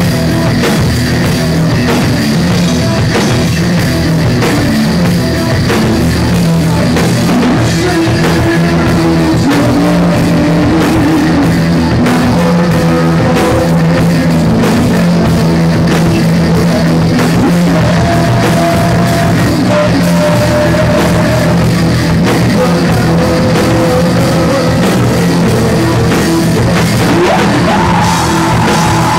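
Live rock band playing loud: electric guitars and bass over a drum kit with cymbal crashes, with a vocalist singing into a microphone.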